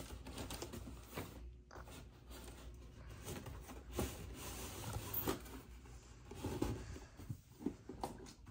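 Handling noises: soft rustling with a few scattered light taps and knocks.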